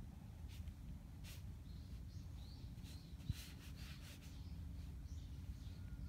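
Faint outdoor ambience with small birds chirping in the distance and a few soft rustles of a hand stroking a cat's fur, over a low steady rumble.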